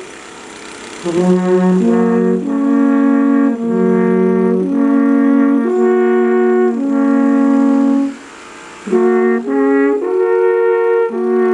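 Alphorns playing a slow melody of long held notes, several notes sounding together in harmony. There are two short breaks between phrases: one at the start and one about two-thirds of the way through.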